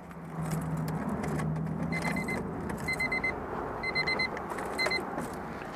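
Warning chime of a 1998 Honda Civic beeping after the ignition is switched on: four short bursts of rapid high beeps, about one a second, starting about two seconds in. A low steady hum runs under the first two seconds.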